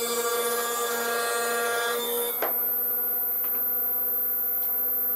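Table saw running and ripping an ash board to true up its edge, a steady whine. The sound changes about two seconds in, with a single sharp knock just after.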